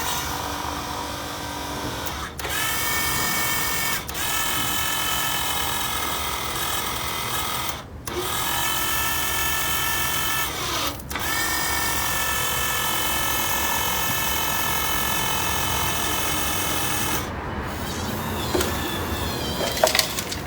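Toy RC rock-crawler car's small electric motor and gearbox whining as it drives, in several runs with brief stops, each run starting with a short rise in pitch. The whine stops about three quarters of the way through, leaving a few faint clicks and knocks.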